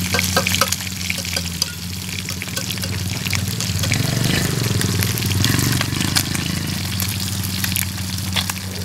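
Rat meat frying in a pan of oil: a steady sizzle scattered with sharp crackles and pops, swelling fuller and louder for a few seconds in the middle.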